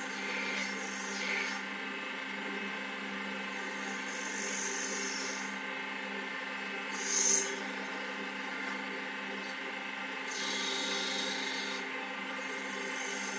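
WS-L1550 mini wood lathe's motor running with a steady hum while a cutting tool scrapes the spinning workpiece, the rasping coming and going in passes, with one short, louder cut about seven seconds in.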